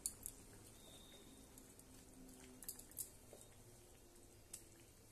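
Faint, sparse clicks and soft plops as fried pieces of katla fish are slipped by hand, one by one, into boiling gravy in a steel kadai.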